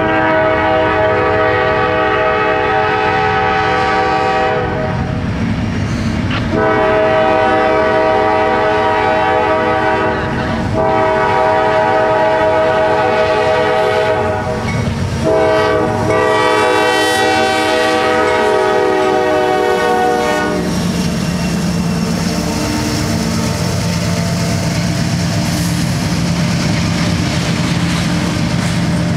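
A CSX diesel freight locomotive sounds its multi-chime air horn in four long blasts as it approaches a grade crossing. After the horn stops, about two-thirds of the way through, the locomotive's diesel engine drones and the wheels of covered hopper cars rumble and clack past.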